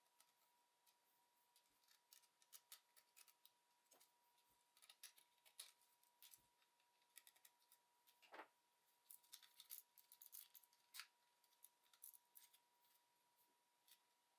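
Faint, irregular small clicks, ticks and scrapes of plastic parts and small tools as a Logitech G304 wireless mouse is taken apart, with a faint steady tone underneath.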